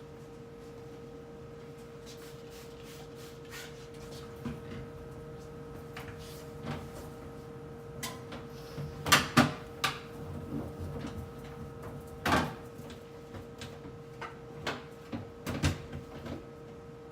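Scattered knocks and clatters of containers, shelves and drawers being handled while a refrigerator is cleaned out, with a cluster of louder knocks about nine seconds in, over a steady hum.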